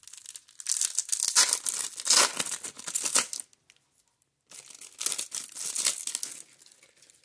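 Plastic wrapper of a 1994 Topps Stadium Club baseball card pack torn open and crinkled by hand, in two spells of crackling: one of about three seconds, then a shorter one after a second's pause.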